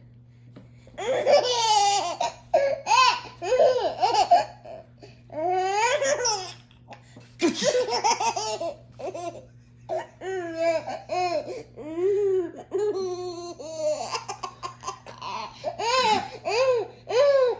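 A young child laughing hard in repeated bouts of high, gliding laughs, each broken by short pauses for breath, over a faint steady hum.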